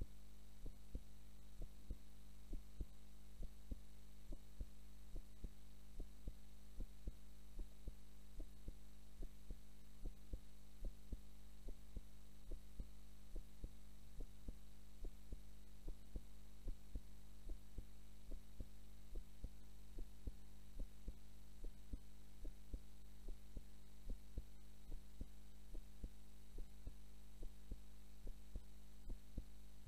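A woman's heartbeat recorded close to the chest: a steady, even rhythm of low double thumps, about one beat a second, over a constant low hum.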